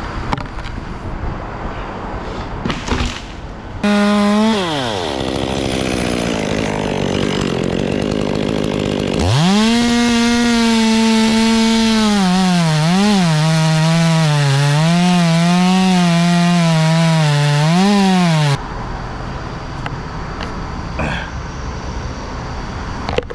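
Two-stroke chainsaw running at full throttle and cutting wood: its high engine note drops and wavers as the chain bogs under load in the cut, then cuts off suddenly. Steady traffic noise before and after.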